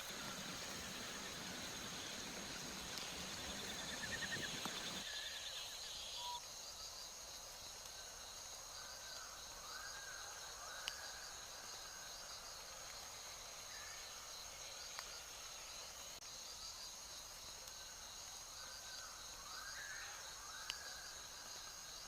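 Insects buzzing steadily at a high pitch in fine pulses, with a bird repeating short calls in pairs. A broader rushing noise fills the first five seconds and cuts off abruptly. A few faint clicks are scattered through it.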